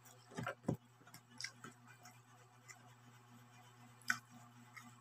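Quiet, scattered clicks and smacks of someone eating noodles by hand: fingers picking food off a plate and chewing. A few sharp ticks come close together about half a second in and another about four seconds in, over a faint steady hum.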